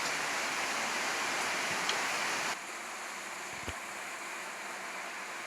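Paneer shallow-frying in butter on a flat tawa: a steady sizzle that drops to a quieter sizzle about two and a half seconds in.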